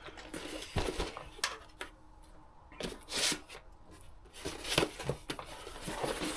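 Cardboard LEGO set boxes and packaging being handled: irregular rustling and scraping with a few short knocks, the strongest a little after three seconds and near five seconds.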